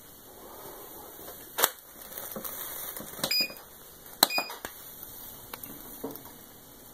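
A few sharp clicks and two short electronic beeps, about three and four seconds in, from the control panel of an A to Z ozone generator as it is operated.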